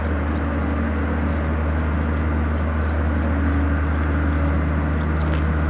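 A steady low droning hum from an unseen machine or engine, with no rise or fall in pitch, and a few faint high chirps over it.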